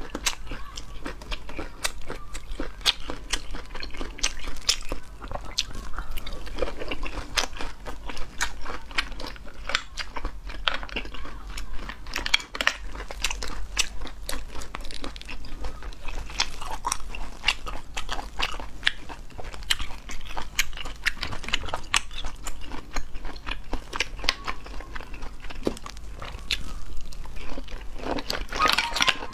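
Close-up eating sounds of a person biting and chewing cooked river snail meat, with frequent sharp clicks and wet smacks throughout.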